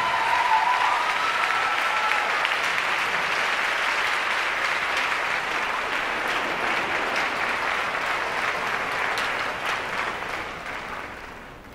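Audience applauding, dense and steady, with a short high cheer in the first second or two; the applause fades out near the end.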